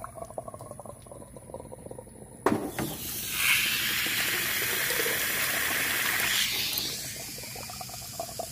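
Water from a hose pouring into the plastic coolant reservoir of a 1997 Ford F-150 for about three seconds, refilling the cooling system after a radiator replacement. A sharp click comes just before the pour starts.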